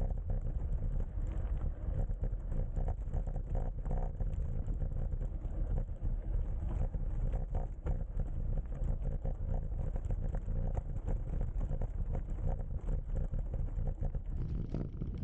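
Wind buffeting the microphone over the rumble of a mountain bike's tyres rolling along a gravel track, with many small irregular knocks and rattles from the bumps.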